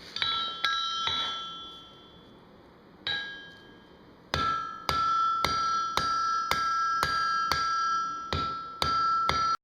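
Hammer blows on steel on an anvil, each strike followed by the anvil ringing with a clear tone: a few scattered blows at first, then from about four seconds in a steady run of about two blows a second.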